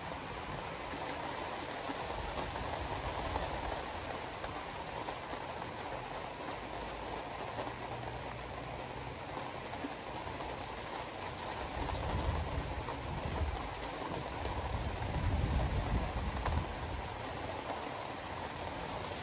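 Steady in-cabin road noise of a car driving on a rain-soaked road: wet tyre hiss with rain, and a deeper rumble that swells twice in the second half.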